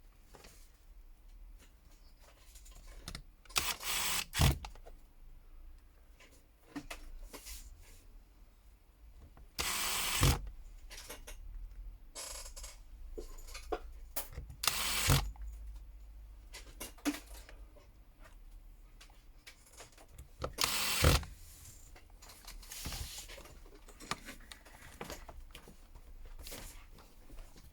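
Small tools and smartphone parts being handled on a workbench: scattered light clicks and taps, with four louder scraping rustles about a second long spread through.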